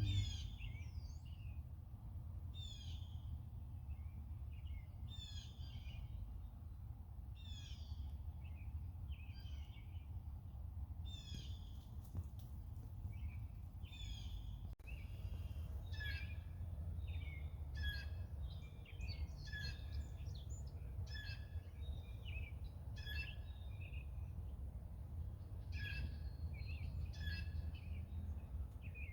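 Songbirds singing: a short song of quick falling notes repeated every couple of seconds, then, after a sudden break about halfway, several birds singing at once, more densely. A steady low rumble lies underneath.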